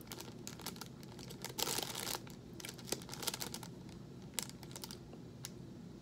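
A microwave pork-rind snack bag crinkling as it is handled and turned over in the hands. The crackling is dense for the first few seconds and loudest about two seconds in, then thins to a couple of single crinkles near the end.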